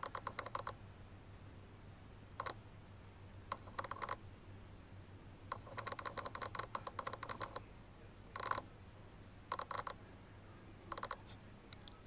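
Camera lens autofocus motor chattering in short bursts of rapid clicks, about seven times, the longest burst lasting about two seconds. The lens is noisy while it refocuses on a close subject.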